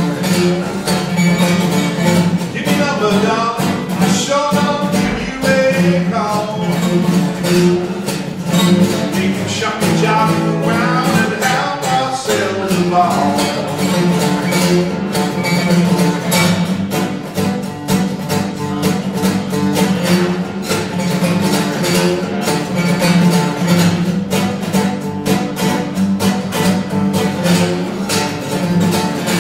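Steel-string acoustic guitar strummed and picked in a steady rhythm: an instrumental passage of a folk song.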